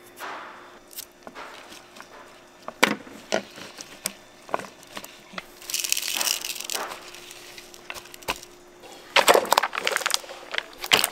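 Gimbap-making handling noises: scattered knocks and clicks, a rustle lasting about a second a little past halfway, and a cluster of louder clatter near the end, over a faint steady hum.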